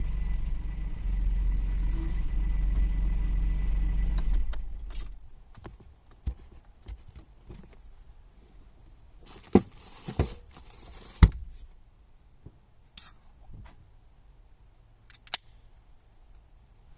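A small car engine, likely the Suzuki Jimny JA11's, running with a low steady rumble and then switched off about four seconds in. Several sharp knocks and clicks follow, the loudest three coming close together about ten seconds in.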